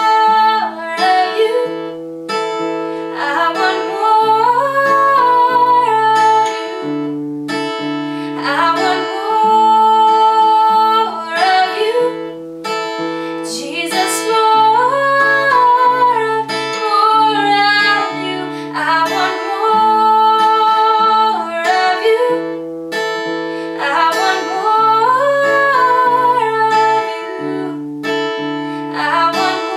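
A woman singing and accompanying herself on an acoustic guitar fitted with a capo, the melody moving between long held notes over repeating chords.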